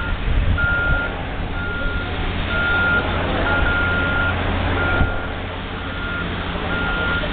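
Backup alarm of heavy demolition equipment beeping about once a second, a single steady tone, one beep held longer about halfway through, over a steady low rumble with one thump near the end.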